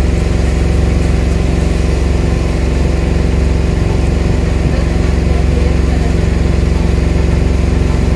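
An engine running steadily at an even speed, with a strong low hum.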